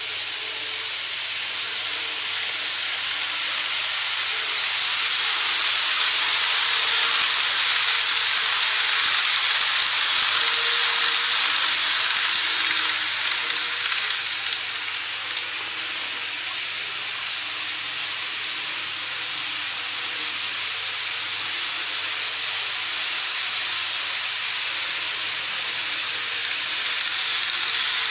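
KATO N-scale model trains running on the track, a steady high-pitched hiss of wheels and motor. It grows louder as the E259 Narita Express model approaches, drops as it passes about halfway through, and rises again near the end as a second train comes close.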